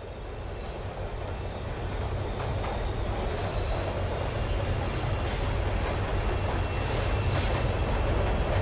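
Train running on the rails with a steady low rumble that fades up, and thin high wheel squeal joining from about four seconds in.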